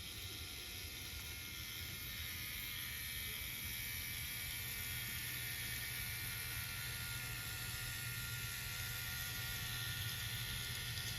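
N-gauge model train of the Gakunan Railway 5000 series running, its motor and running gear whirring steadily and slowly growing a little louder.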